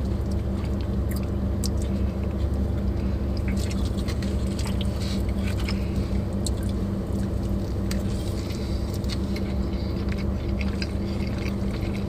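A person chewing and biting a burger, with many small wet clicks and smacks, over a steady low hum.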